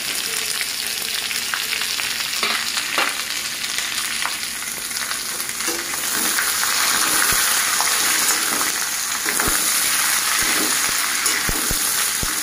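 Sliced onions sizzling in hot oil with whole spices in a metal kadhai, stirred with a flat steel spatula that clicks and scrapes against the pan now and then. The sizzle grows louder about six seconds in.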